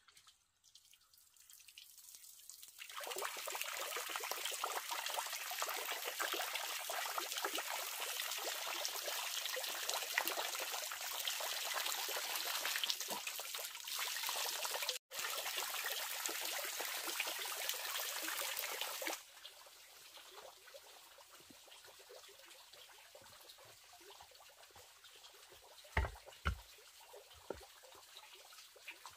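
Water jets spraying from a bamboo-pipe fountain nozzle and splashing down onto a pond, a steady hissing splash that starts about three seconds in and cuts off suddenly past the middle. Near the end come a few knocks as bamboo tubes are handled.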